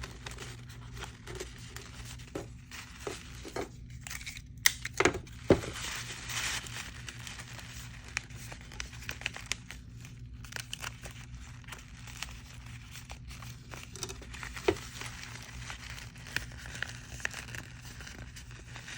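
Tape being pulled off the roll, torn and pressed down along the paper edges, with paper crinkling as it is handled; a few sharper snaps of tape about five seconds in and again later.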